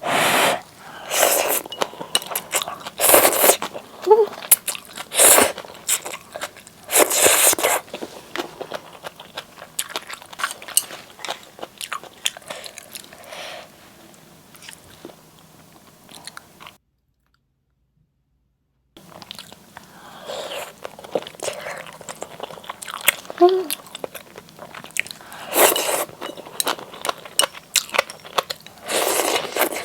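Close-miked eating sounds from a bowl of spicy Buldak seaweed-soup ramen: wet, irregular chewing and biting noises. They break off into about two seconds of total silence a little past halfway.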